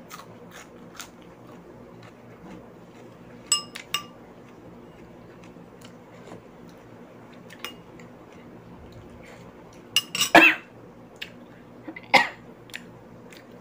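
A metal spoon clinks twice against a dish, with a short ringing each time, among small ticks of eating. Near the end come two short, loud coughs, set off by the heat of the chili being eaten.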